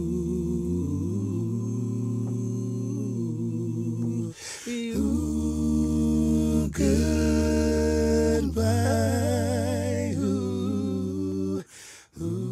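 Background music sung a cappella: voices hold hummed chords under a lead voice with a wavering vibrato. It breaks off briefly a little after four seconds and again near the end.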